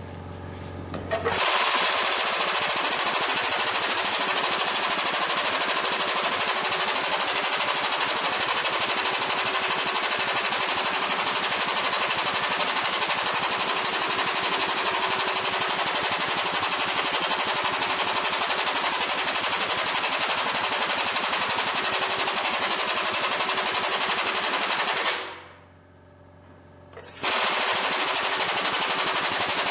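A powered metal bender running under load while bending a metal piece, with a loud, rapid rattle. It stops about 25 seconds in, leaving a low hum, and starts again about two seconds later.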